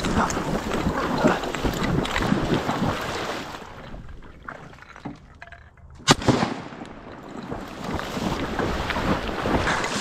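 A single shotgun shot about six seconds in, the loudest sound, sharp and sudden. Before and after it, wind on the microphone and rustling from a hunter moving.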